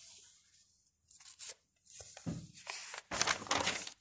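Paper pages of a workbook being turned and handled, a few dry rustles that build to the loudest crinkle near the end.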